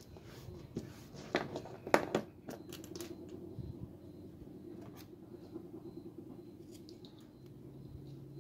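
Sharp clicks and taps of a hand tool and small metal parts being handled, a cluster in the first three seconds with the loudest about two seconds in, then only a few faint ticks over a steady low hum.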